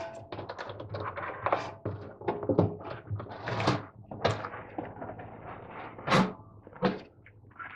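Rubber door seal of a Bosch washing machine being peeled off the lip of the outer tub: a run of irregular rubbing and scraping with soft knocks, and a few louder knocks in the second half as the seal comes free.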